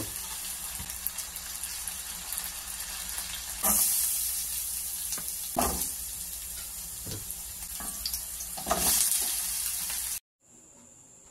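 Onion, garlic and diced potatoes sizzling in hot oil in a metal pan, a steady hiss that swells louder three times. The sizzling cuts off suddenly about ten seconds in.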